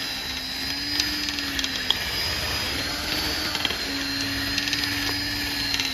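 Drill spinning a wire brush down the injector-cup bore of a Caterpillar C15 cylinder head: a steady motor whine with scattered scraping ticks. The brush is scouring old retaining compound and debris off the cup seat before a new cup is fitted.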